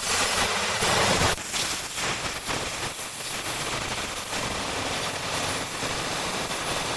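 Compressed-air blow gun hissing and sputtering as it blasts brake dust out of a car's rear brake caliper. It is louder for the first second or so, then drops and runs on more evenly.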